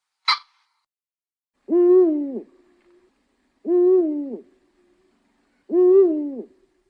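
An animal call repeated three times, evenly about two seconds apart: each call is a pitched note of under a second that rises slightly and then falls away. A short sharp click comes just before them.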